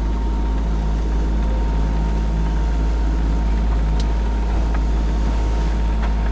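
A sailing yacht's inboard engine running at a steady drone under way, with a thin steady whine above it. A couple of light clicks come near the middle and near the end.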